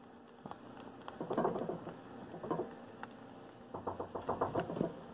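Hands pressing and patting a strip of polymer clay against a cutting mat to even out its edges: soft rubbing and dull taps, with a quick run of light pats near the end.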